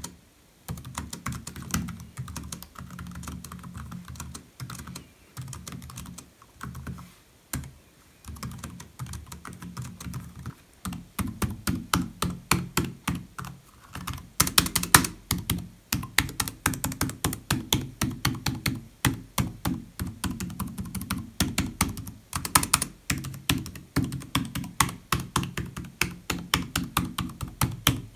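Typing on an HP EliteBook 840 G5 laptop keyboard: a continuous patter of key clicks, soft at first, then louder and denser about ten seconds in.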